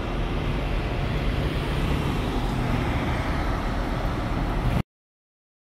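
Steady road-traffic noise that cuts off suddenly near the end.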